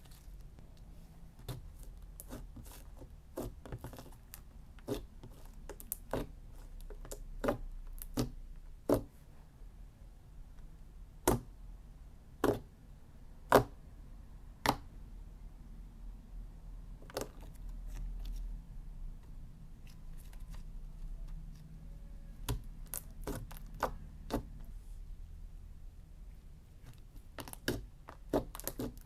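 Slime being worked by hand, making irregular sharp clicks and pops, with a few louder ones in the middle and quieter stretches between.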